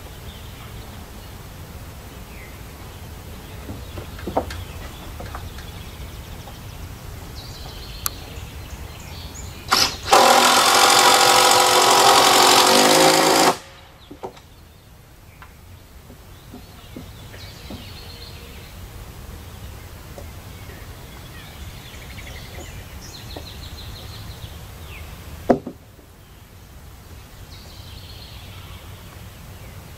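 Power drill running in one steady burst of about three and a half seconds, starting about ten seconds in, with a couple of sharp knocks just before it: a 5-inch wood screw being driven up through the top plate into the base of a rafter. Around it, a steady outdoor background with faint bird chirps.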